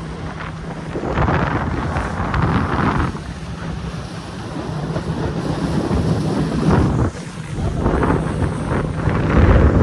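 Wind buffeting the microphone on a speedboat running fast across a lake, in gusts that rise and fall every second or two, over the steady hum of the boat's motor and the rush of water along the hull.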